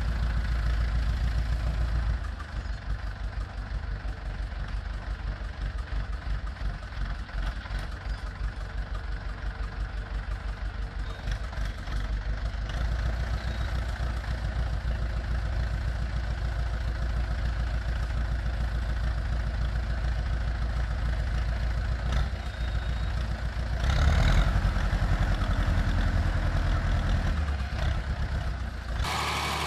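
Tractor engine running steadily at low speed, with a fast fluttering pulse in the first few seconds. It grows louder for a few seconds about 24 seconds in.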